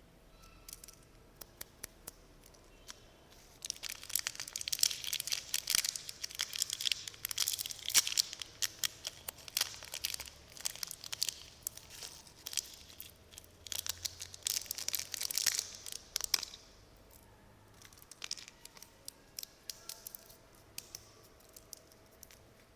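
Crinkly snack wrapper being handled and torn open, with a dense run of crackling and tearing from about four seconds in until about sixteen seconds. Scattered lighter crinkles and clicks come before and after.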